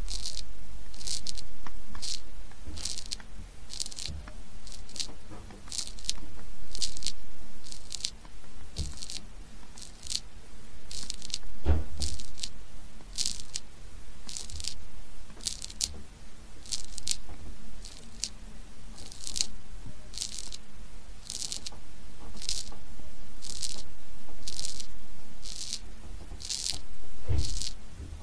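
A snail eating: its radula rasping at food in a steady run of short, high, crisp scrapes, about two a second. There is a single soft knock about twelve seconds in.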